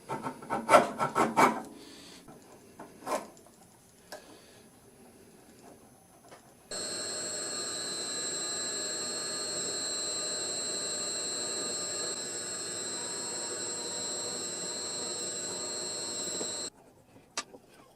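A few wooden knocks and handling clatter, then a power tool runs at a steady speed for about ten seconds with a high whine, starting and stopping abruptly, as a walnut handle is drilled and carved out.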